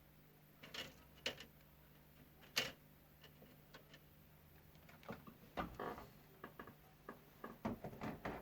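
Scattered small clicks and knocks of parts and tools being handled on a workbench, a sharper knock about two and a half seconds in and a quicker run of clicks over the last few seconds.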